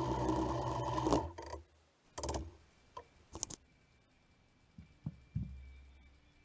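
Drill press running as it bores a hole in a pine block, stopping abruptly about a second in. A few short clicks and knocks follow, then a few soft thumps near the end.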